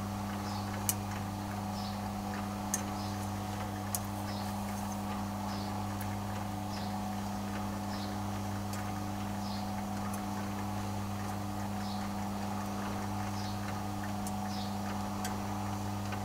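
Rotisserie motor humming steadily as it drives the geared skewers, with a faint regular tick a little under once a second. Metal tongs click sharply against the grill three times in the first four seconds.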